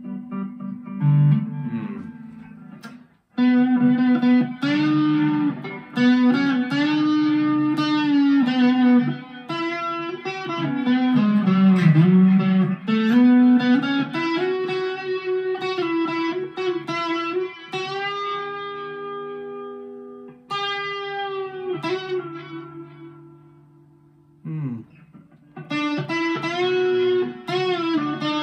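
Epiphone Les Paul Modern Figured electric guitar played through an amp: a single-note lead line with string bends and vibrato. It drops out briefly about three seconds in and fades to a quieter stretch near the end before picking up again.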